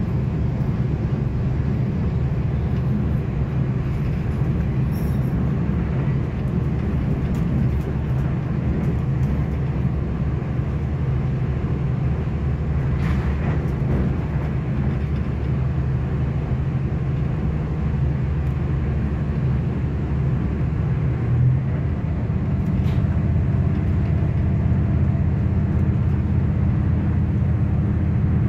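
Steady rumble of a moving V/Line regional passenger train, heard inside the carriage. It grows slightly louder and steadier about three-quarters of the way through.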